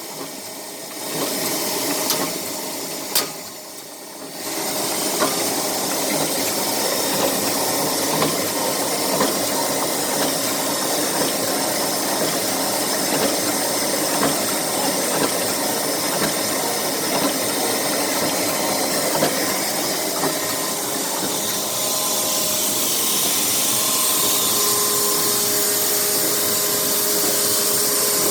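Electric-motor-driven machine on test with its replaced motor. It drops away twice in the first few seconds, with two sharp clicks between, then runs steadily with a hiss and small regular knocks.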